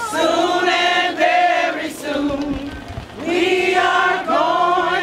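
A group of voices singing together in long, held notes, in two phrases; the second begins about three seconds in.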